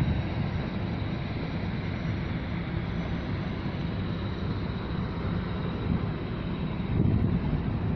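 Steady low rumble of a small oil tanker's engine under way, with wind buffeting the microphone and a stronger gust about seven seconds in.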